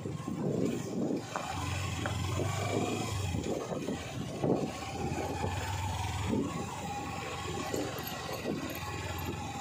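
Sport motorcycle engine running at low revs while riding slowly over a rough gravel track, with irregular crunches and knocks from the tyres and suspension on the stones.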